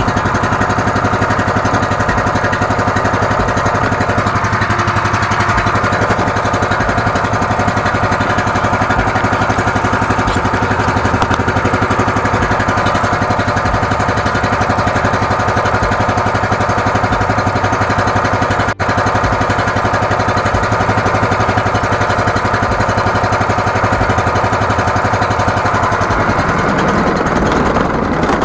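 13-horsepower engine of a high-pressure sewer jetter running steadily, warming up after a morning cold start. The sound cuts out for an instant about two-thirds of the way through.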